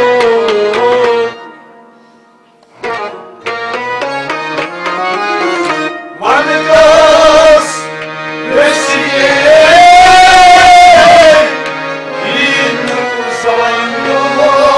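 Kashmiri folk ensemble playing between sung lines: harmonium holding notes and melody, a plucked rabab and a hand drum. The music drops out briefly about two seconds in, then comes back in and builds.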